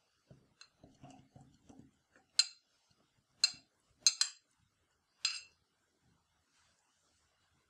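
Pitted black olives tipped from a bowl into a clear plastic food-chopper bowl: a run of soft knocks as they drop in during the first two seconds, then five sharp clinks.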